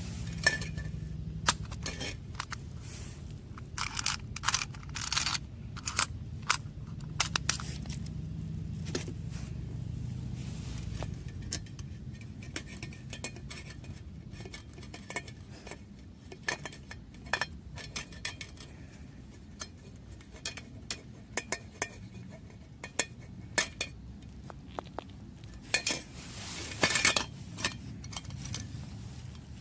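Metal utensils clinking and scraping against metal cookware in irregular taps, with longer scrapes about four seconds in and again near the end, over a steady low rumble.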